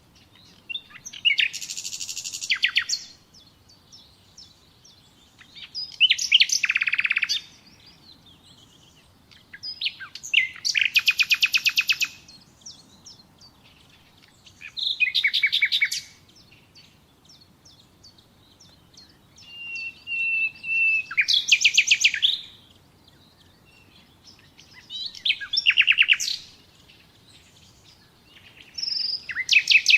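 Nightingale singing in short phrases of rapid repeated notes, each phrase about two seconds long, seven in all, separated by pauses of a few seconds. One phrase about two-thirds of the way in opens with a long whistled note.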